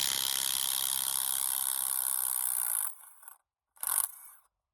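RIDGID 18V brushless subcompact half-inch impact wrench hammering on a trailer wheel nut to remove it, a rapid rattle of blows. It stops about three seconds in, and a short second burst follows a moment later.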